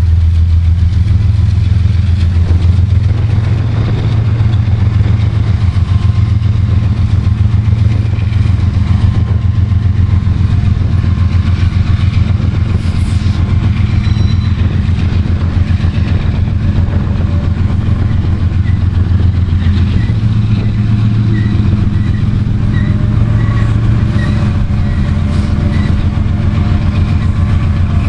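Freight train of tank cars rolling past at speed, steel wheels on rail: a steady low rumble with a fast, even clatter.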